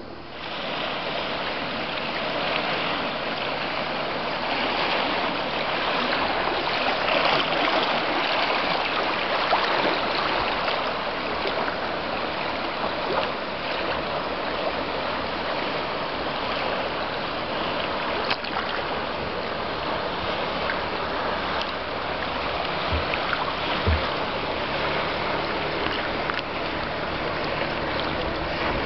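River water splashing and lapping against a kayak's hull as it moves over choppy water, a steady wash of noise.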